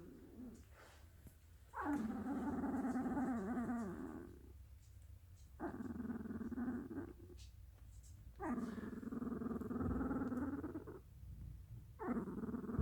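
Dalmatian puppy vocalizing in its sleep: four drawn-out, low, grumbling whines, each lasting one and a half to two and a half seconds, with short quiet breaths between them.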